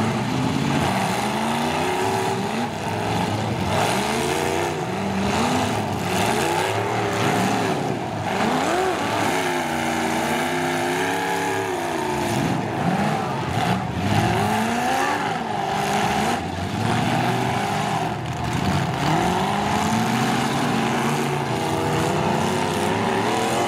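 Several demolition derby pickup truck engines revving up and down over one another as the trucks accelerate, back up and ram each other, with the pitch rising and falling every second or two.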